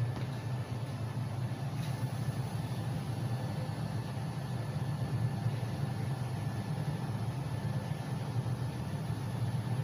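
Steady low mechanical hum with a faint hiss above it, unchanging throughout.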